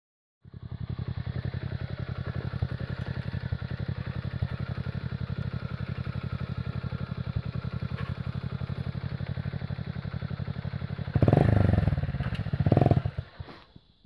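A small engine running with a rapid, even beat, growing louder twice in quick succession near the end before it dies away.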